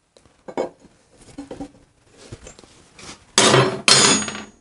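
Steel open-end wrenches clinking against each other and the metal, with a few light clicks and then two loud rattling clatters close together near the end.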